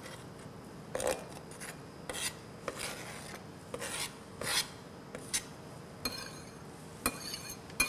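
Kitchen knife scraping across a cutting board, sweeping finely diced pickles off it into a bowl: a series of short scrapes and taps, with a longer scrape near the end.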